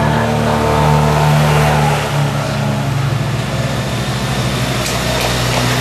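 Race escort motorbike and scooter engines running steadily as they ride past close by.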